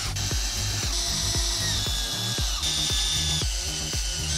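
Cordless drill driving long wood screws into a plywood subfloor, its motor whining in several runs with short breaks between screws. Background music with a steady beat plays under it.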